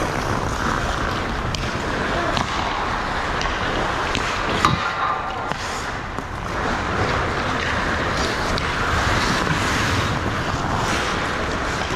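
Ice hockey play on an indoor rink: skates scraping and carving on the ice throughout. About five seconds in there is a single sharp hit that rings briefly.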